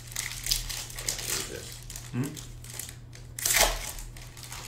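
Foil trading-card pack wrappers crinkling and crackling as they are handled and torn open, with the loudest crinkle about three and a half seconds in. A brief low murmur from a man comes about two seconds in.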